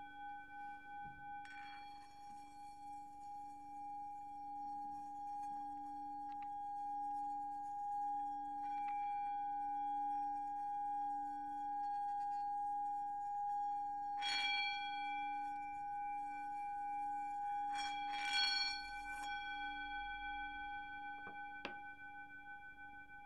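Singing bowl ringing with a steady, slowly pulsing tone, struck again several times: once about a second and a half in, then a few times past the middle, the loudest strike about three-quarters of the way through.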